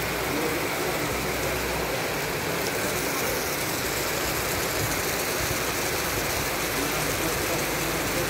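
Heavy rain falling on flooded ground and puddled water: a steady, dense hiss.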